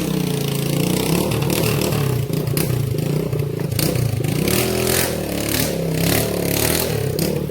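Small motorcycle engine revving up and down unevenly as it labours up a steep, rocky dirt trail, with repeated scrapes and clatters through it.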